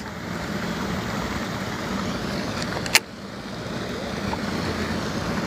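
Steady rush of wind and water over a low hum, with one sharp click about three seconds in.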